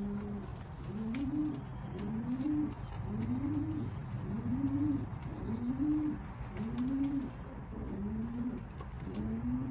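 Domestic pigeon cooing: a run of low coos, each rising then falling in pitch, about one a second.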